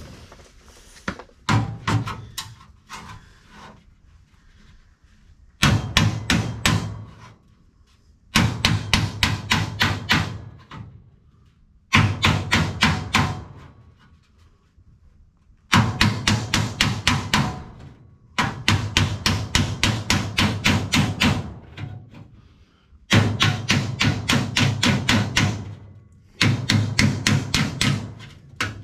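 Hammer striking welded sheet steel against a backing bar, knocking down weld tacks and flattening the patch panel flush. A few scattered blows at first, then runs of quick blows, about four a second, each run lasting two to four seconds with short pauses between.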